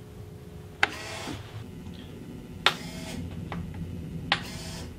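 Three sharp switch clicks about two seconds apart, each followed by a brief ringing tone, as the model tank's light switch is flipped, over a steady low hum.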